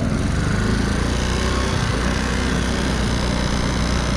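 Lifan 110cc single-cylinder four-stroke engine of a Honda C90 step-through running steadily under way.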